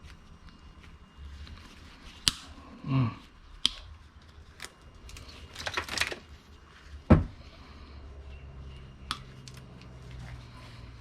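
Scattered clicks, snips and rustles of scrap cables being handled and cut by hand. There is a short falling sound about three seconds in, a crackling patch around six seconds, and a single louder knock a little after seven seconds.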